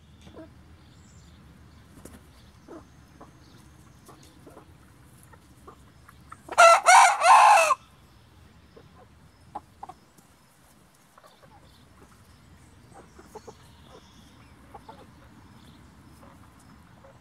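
Blue Andalusian rooster crowing once, about six and a half seconds in: a single loud cock-a-doodle-doo of a little over a second, broken into several pulses.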